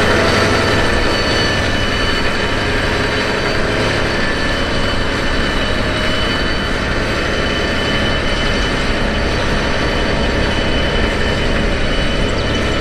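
John Deere 8370RT tractor's diesel engine running steadily under load, pulling a plough.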